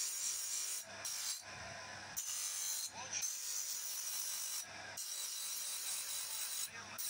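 Small brass casting pressed against a spinning grinding wheel on a motor spindle: a steady, high, hissing grind, broken by brief pauses about half a dozen times as the piece is lifted and turned.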